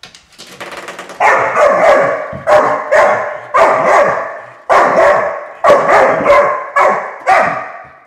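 Coiled-spring door stopper twanged again and again as a puppy strikes it. A fast rattle in the first second, then about ten sharp twangs, each ringing and fading away.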